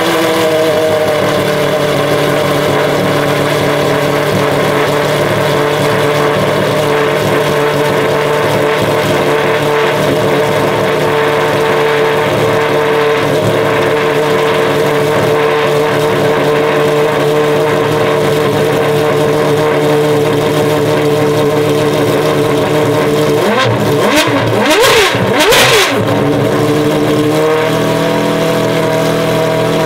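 Pagani Huayra R's naturally aspirated V12 idling steadily just after start-up, then blipped up and back down two or three times about 24 seconds in before returning to idle.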